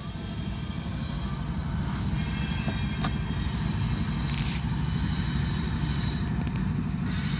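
Car on the move: steady low road rumble heard from inside the cabin, building a little over the first two seconds, with one sharp click about three seconds in.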